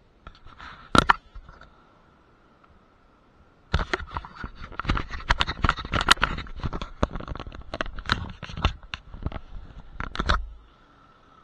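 Close handling noise on a body-worn action camera: gloved hands and gear rubbing and knocking against the camera and its mount, a quick cluster of knocks about a second in, then several seconds of dense, irregular scraping and clicking that stops sharply near the end.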